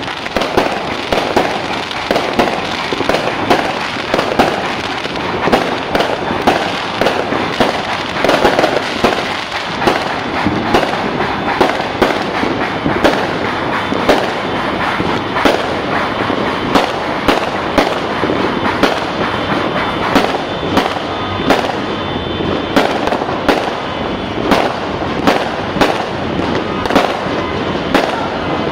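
Fireworks going off without pause: loud bangs one or two a second over continuous crackling.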